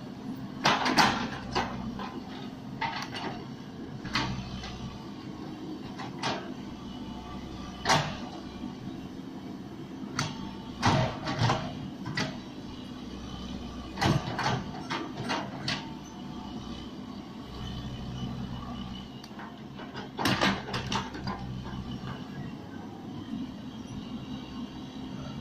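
Hydraulic excavator's diesel engine running steadily while digging, broken by irregular metallic clanks and knocks, a few seconds apart and sometimes in quick clusters.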